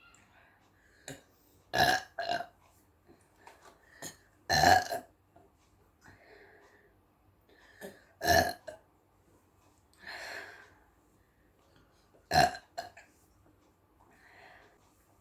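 A woman burping again and again: about half a dozen loud burps spaced a second or more apart, with a few softer ones between.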